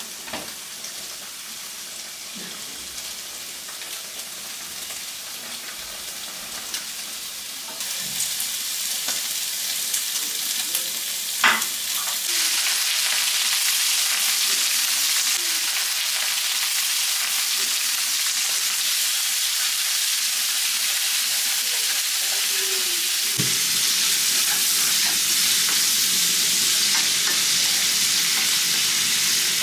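Food sizzling as it fries in a hot pan, a steady hiss that grows louder about a third of the way in and again shortly after. A single knock, like a utensil against the pan, comes about halfway through.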